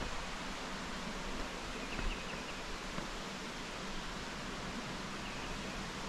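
Steady rushing of the nearby Catawba River headwaters, an even wash of flowing water. Faint high chirps sound briefly about two seconds in and again near the end.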